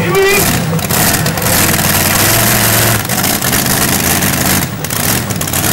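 Modified pulling tractor's supercharged V8 engine running at a loud, steady idle.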